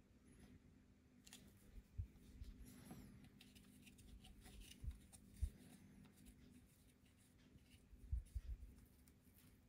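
Quiet handling noises: scattered small clicks and soft knocks as a plastic oil syringe and its clear tube are worked at the oil port of a Pinion bicycle gearbox. There are a few louder taps about two seconds in, around five seconds in, and a cluster near the end.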